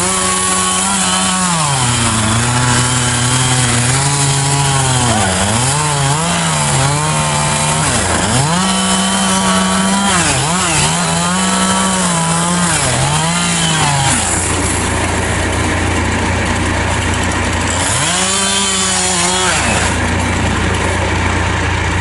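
Gas chainsaw cutting into the trunk of a large pine tree. For about fourteen seconds its engine pitch repeatedly sags under load and climbs again as the chain bites and eases. It then drops to idle, revs up briefly once more near the end and falls back to idle.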